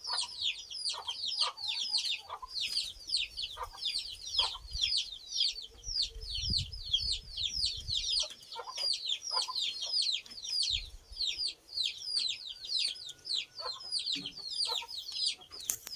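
Domestic chicks peeping nonstop: a dense stream of short, high, falling cheeps, several a second, with a few lower clucks mixed in.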